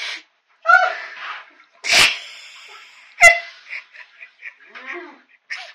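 A person's startled, high-pitched yelps and a sharp gasp, then a run of short laughs, in reaction to a washlet bidet toilet's water spray.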